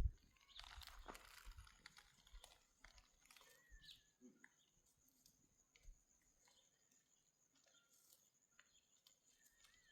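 Near silence with a few faint, scattered clicks and knocks, loudest in the first second or so, and one or two faint short chirps.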